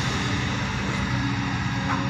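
Kobelco hydraulic crawler excavator's diesel engine running steadily as the machine swings and works its loaded bucket.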